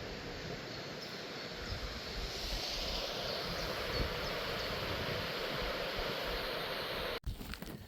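Steady outdoor rushing noise that cuts off abruptly near the end, followed by a few light ticks.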